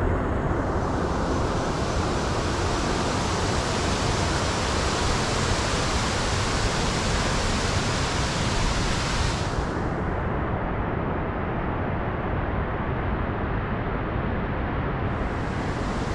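Steady rush of river water tumbling over cascades, an even hiss that turns duller about nine and a half seconds in.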